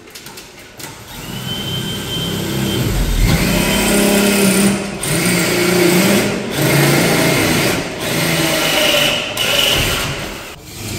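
Power drill cutting a hole in an electrical pull box. The motor runs hard in a sustained whine and eases off briefly several times as the cut goes on.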